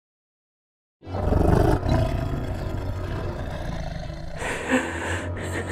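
About a second of silence, then a cartoon dragon's roar sound effect starts suddenly: a loud, rumbling roar that settles into a steadier, lower rumble for its last second or so.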